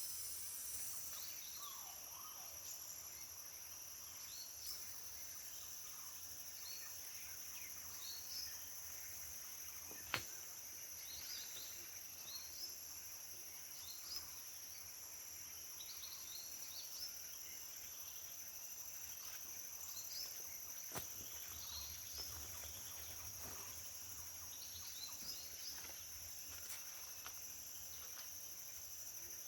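Tropical forest ambience: a steady high-pitched insect drone with short bird chirps scattered throughout. A sharp click about ten seconds in, another fainter one around twenty-one seconds.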